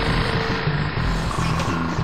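Background music with a steady, repeating bass line.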